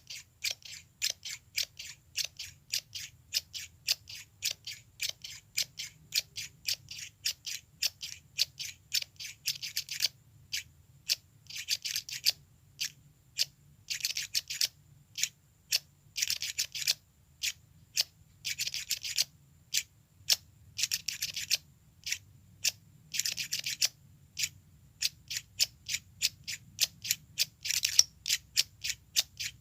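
Scissors snipping over and over in sharp, crisp snips. For the first ten seconds they come steadily at about two to three a second. After that, quick runs of rapid snipping come every two seconds or so, with single snips in between.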